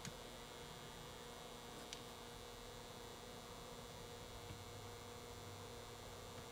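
Faint steady electrical hum over quiet room hiss, with a couple of small clicks, one right at the start and one about two seconds in.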